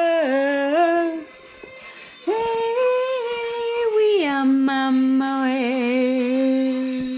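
A single voice singing long held notes, stepping down and up between a few pitches, with a brief pause about a second in and a slight waver in the last long note.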